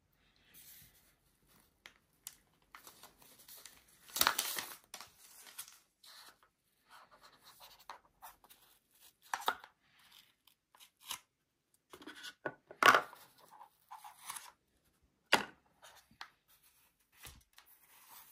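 Product packaging being torn open and handled: irregular tearing and rustling with short sharp knocks and clicks, the loudest bursts about four seconds in and about thirteen seconds in.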